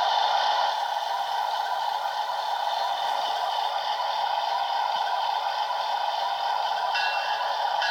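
Train air horn blowing one long, steady chord of several chimes sounding together, held without a break.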